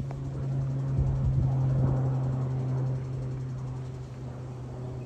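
Small propeller plane flying overhead, its engine and propeller giving a steady low drone. There are a few low bumps on the microphone between one and two seconds in.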